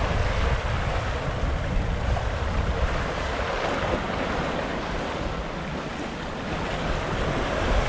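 Sea water rushing past a sailing yacht's hull as it sails along at speed, with wind buffeting the microphone as a steady low rumble.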